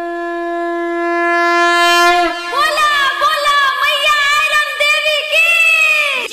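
Wind-instrument intro of a Bhojpuri devotional song: one long steady note is held, then about two seconds in it breaks into a wavering, ornamented melody full of pitch bends.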